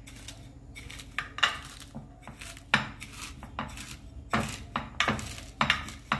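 Small steel bowl pressed and tapped down on roasted vermicelli in a glass baking dish, packing the base layer tight: irregular sharp knocks and clinks, roughly one a second, with rustling between them.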